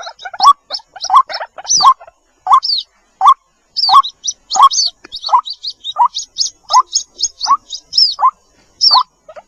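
White-breasted waterhen chicks calling for their mother hen: a quick run of short peeping calls, about two a second, with higher curving chirps over them, broken by one brief pause near the end.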